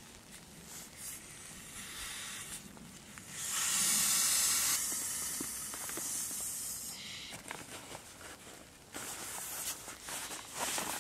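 Breath blown into cupped hands, one long hiss about three and a half seconds in, with padded-jacket fabric rustling around it as the hands and arms move.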